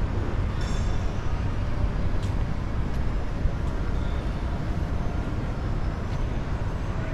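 Steady low rumble of a large shopping-mall atrium's background noise, with a few faint clicks.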